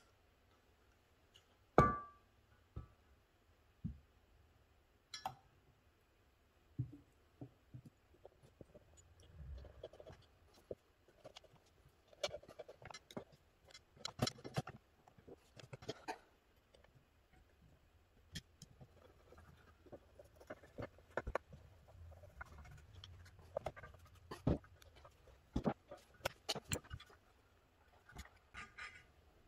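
Scattered clicks and light metal clinks as the parts of a Rochester 4GC carburetor are handled: the cast air horn set onto the body over its gasket and screws fitted into it. There is a sharper ringing clink about two seconds in, and the taps come thicker through the middle and latter part.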